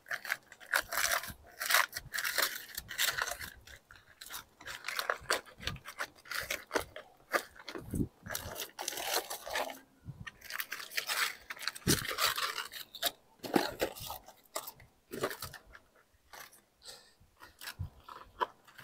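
Aluminum foil being pulled open from around a cooked brisket by gloved hands, crinkling and crackling in irregular handfuls with a few brief pauses.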